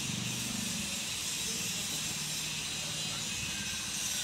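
Steady outdoor background hiss with a faint low drone underneath, and no speech.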